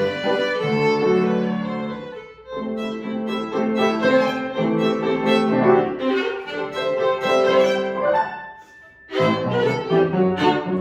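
Violin playing a classical piece with piano accompaniment, in quick, accented phrases. The music breaks off briefly about eight and a half seconds in and then resumes.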